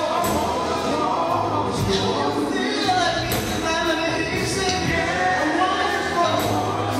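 Male gospel group singing live with a full band: a lead voice over backing voices, drum kit with cymbal hits, electric guitar and a steady bass.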